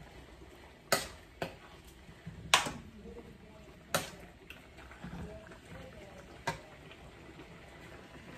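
Metal spoon stirring and scooping thick dinuguan (pork blood stew) in a frying pan, knocking against the pan about six times, sharp clinks spread through.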